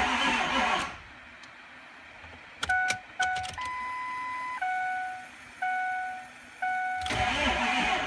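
Ford 6.0L Powerstroke diesel being cranked on the starter without firing, in a crank-no-start fault that the mechanic blames on untorqued injectors leaking combustion pressure. The cranking cuts off abruptly about a second in. After a pause come a few clicks and a string of electronic beeps, and cranking starts again abruptly about 7 seconds in.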